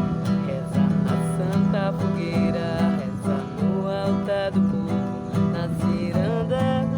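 Music: an acoustic guitar strumming a steady rhythm, with a melody line above it that slides between notes.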